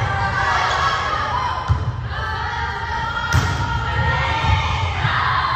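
Volleyball rally in a gymnasium: two sharp thumps of the ball being struck, under a second apart from two seconds, over players' calls and spectators' voices echoing in the hall.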